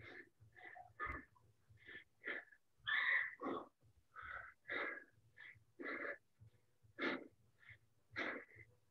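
A person breathing hard from exercise: quick, uneven breaths, about one or two a second, each a short rush of air.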